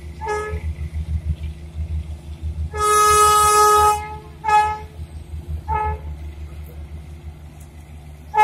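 Darjeeling toy train's steam locomotive whistle: a short toot, a long loud blast about three seconds in, two more short toots, and another at the end, over the low rumble of the train running.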